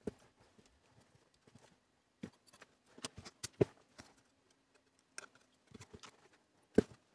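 Scattered light clicks and knocks of a circuit board being handled, turned over and set back down on the bench, loudest about three and a half seconds in and again near the end.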